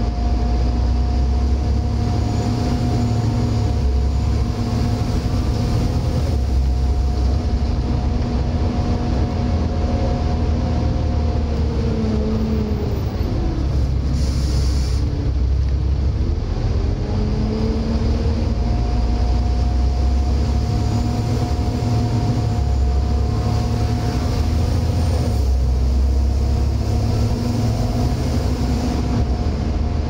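Volvo B7TL double-decker bus running, heard from the upper deck: the engine and ZF automatic gearbox whine steadily, the whines falling in pitch as the bus slows about halfway through and rising again as it pulls away. A short air hiss comes between.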